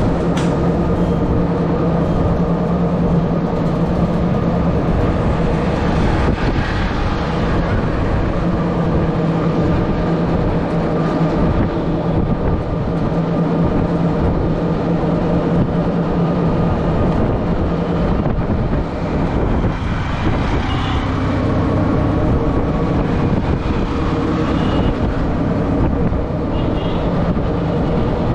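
Small engine of a green CNG auto-rickshaw running steadily under way, heard from inside the open cab with road and wind noise. The engine note briefly drops and eases off about two-thirds of the way through, then picks up again.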